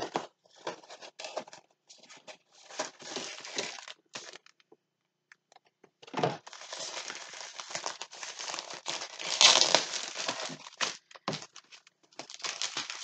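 Plastic packaging of a diamond painting kit crinkling and rustling as it is handled, in two stretches with a pause of about two seconds between them; loudest a little past halfway.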